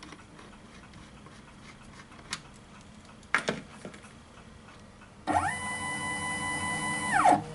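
A few tool clicks, then a small electric motor spins up, runs at a steady whine for about two seconds and winds down near the end.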